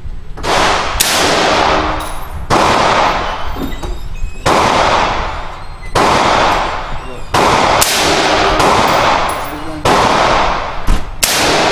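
Smith & Wesson AR-15 rifle in 5.56 mm firing about nine single shots, one to two seconds apart. Each report rings out for a second or more.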